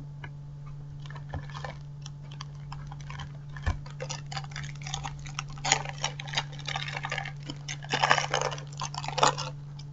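A trading-card packet being torn open and its plastic wrapper crinkled and handled: scattered clicks at first, then a dense run of crackling from about four seconds in until near the end, over a steady low hum.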